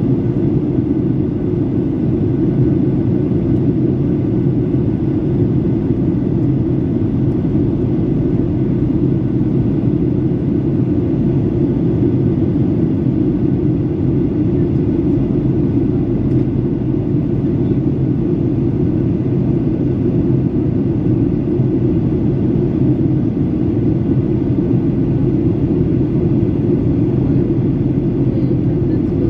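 Steady cabin noise inside a Boeing 737-800 in flight: a constant low rumble of airflow and its CFM56-7B turbofan engines, heard through the fuselage, that holds level without change.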